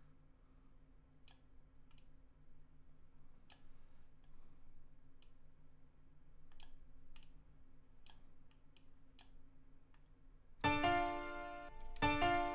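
Sparse computer mouse clicks over a faint steady low hum. Near the end the beat starts playing back: two loud keyboard chords about one and a half seconds apart.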